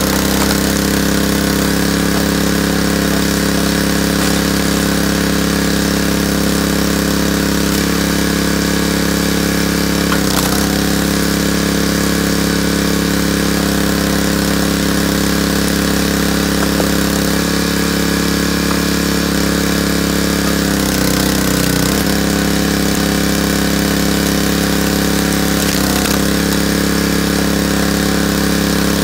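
Small gas engine of a hydraulic log splitter running steadily, its pitch sagging briefly a few times as the hydraulic pump takes load while the ram drives logs through the wedge.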